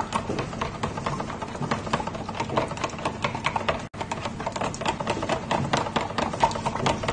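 Metal spoon stirring thick peanut-sesame sauce in a plastic measuring jug, tapping and clicking rapidly and unevenly against the jug's sides as the paste is worked smooth with soy sauce and vinegar.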